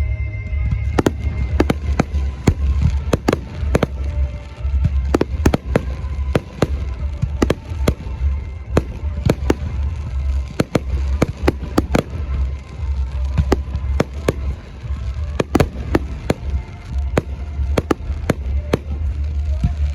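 Fireworks display: aerial shells bursting in a rapid, irregular string of sharp bangs over a steady low rumble, with music playing underneath.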